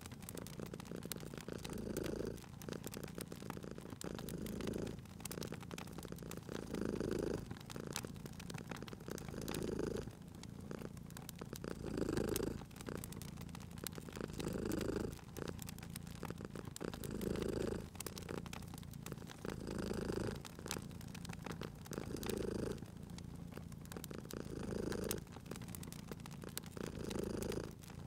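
Domestic cat purring steadily, the purr swelling and easing with each breath about every two and a half seconds, with the sharp scattered pops of a crackling wood fire.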